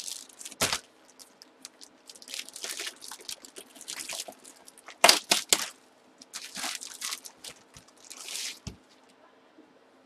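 Plastic packaging being torn open and crinkled by hand, in several separate bursts of crackling, with the loudest sharp snaps about five seconds in.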